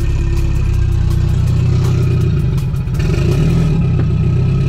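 Turbocharged Mazda Miata four-cylinder engine running in first gear as a freshly replaced clutch is let out. About three seconds in the engine note dips and shifts as the clutch takes up and the car starts to move.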